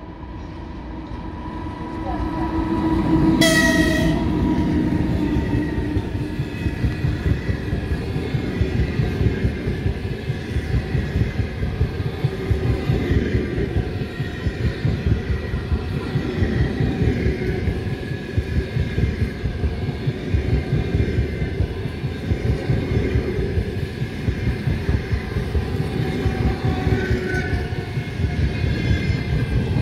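An EP2K electric locomotive hauling a long passenger train through a station at speed. It gives one short horn blast about three and a half seconds in, then the coaches roll past with a steady rumble and fast wheel clatter.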